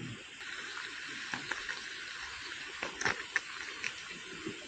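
Steady sizzling hiss from a tin of food heating on a small camp stove, with a few small clicks and taps of handling.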